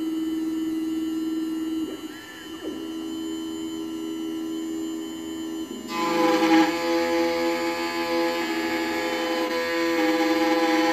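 Computerised key-cutting machine milling a laser-cut (track) Honda key blank: a steady motor whine of several fixed tones. About six seconds in it turns louder and harsher as the cutter works the blank.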